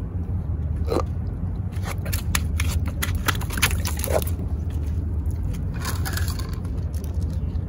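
Quick clicks and scrapes as a freshly caught pufferfish is handled and dropped onto the paving tiles, most of them in a short run in the middle, over a steady low rumble.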